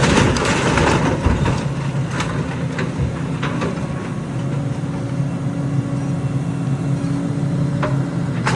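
Heavy construction machine's engine running steadily with a low hum, with a few clanks and knocks over it.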